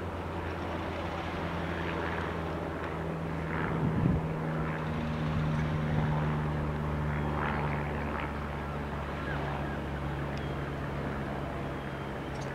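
Battery-electric shunting locomotive running slowly, its traction motors giving a steady low hum, with a higher tone coming in about four seconds in. A single clunk sounds at about the same moment.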